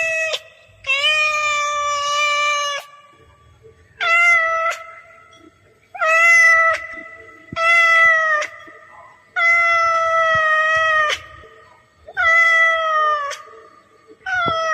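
Domestic cat meowing over and over: about seven long, drawn-out meows of steady pitch, each one to two seconds long, with short pauses between them.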